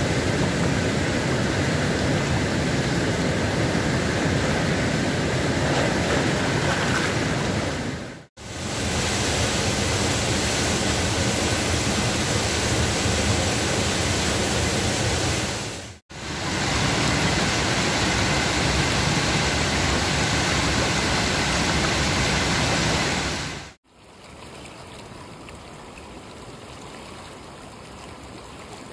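Rushing water of a river in flood: a steady, loud whitewater and waterfall rush in three stretches broken by brief cuts. About 24 s in, it gives way to a much quieter flow of floodwater running along a shallow overflow channel.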